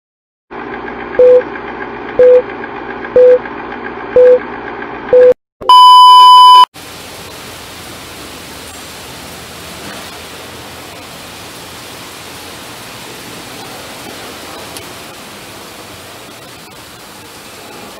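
A countdown-style beep effect: five short beeps about a second apart over a steady hum, then one longer, higher beep. After that there is a steady even hiss of workshop background noise.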